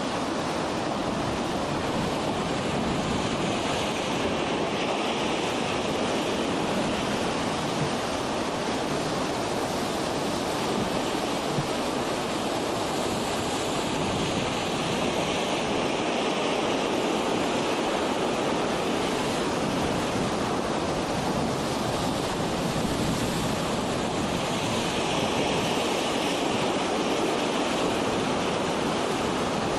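Steady rush of lake water washing against the shore and the boats, with wind buffeting the microphone, an even noise that does not let up.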